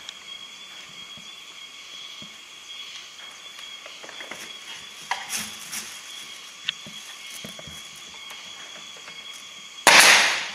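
Pneumatic nail gun firing once near the end, a sharp bang with a rush of air, as it drives a nail through a wooden strip into the box. Before it, a few light knocks of wooden pieces being handled.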